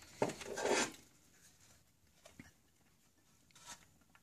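Hands handling an aluminium amplifier chassis: a short scraping and rubbing in the first second, then a few faint small clicks.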